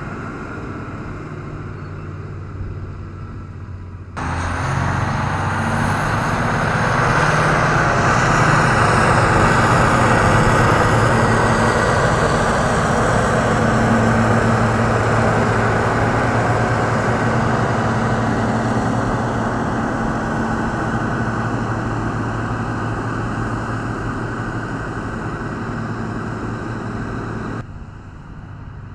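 Caterpillar wheel tractor-scraper's diesel engine running hard as the machine drives close past, with a high whine climbing in pitch for a few seconds. The engine comes in suddenly about four seconds in and drops back just before the end.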